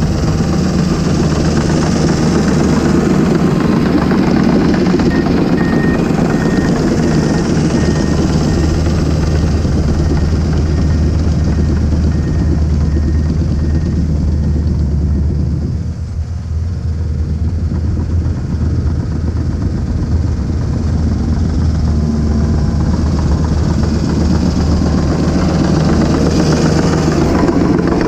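Komatsu D39PX-24 crawler dozer's diesel engine running steadily under load as it pushes dirt. A faint reversing alarm beeps at an even pace for several seconds in the first half as the dozer backs up. The engine sound drops briefly about halfway through, then grows loud again as the machine comes close.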